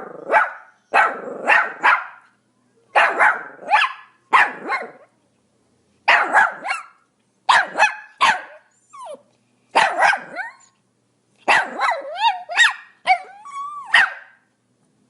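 Pomeranian barking in quick runs of two or three high, sharp barks, again and again. Near the end the barks turn into shorter yips that slide up and down in pitch, then stop.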